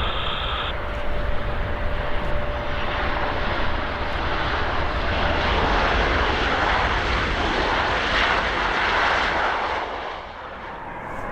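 Boeing 737-800's CFM56 jet engines passing on landing approach: a deep rumble with a thin steady whine over it in the first half, building to its loudest about six to nine seconds in, then easing near the end.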